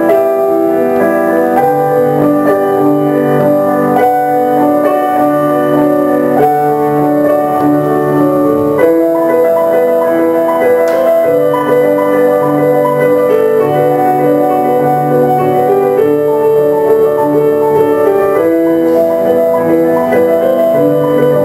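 Piano music playing slow, held chords with a low bass note under them.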